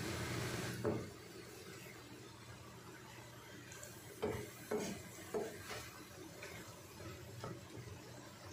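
Wooden spoon stirring red lentils and diced bell pepper in a frying pan, with a knock against the pan about a second in and a string of short scrapes and knocks from about four seconds on.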